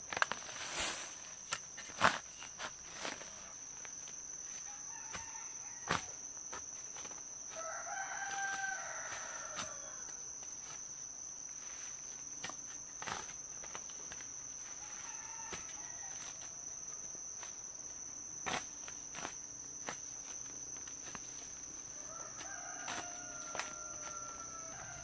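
Roosters crowing, three crows spread out: one about eight seconds in, one around fifteen seconds, and a longer one near the end. A steady high whine and scattered sharp knocks run beneath them.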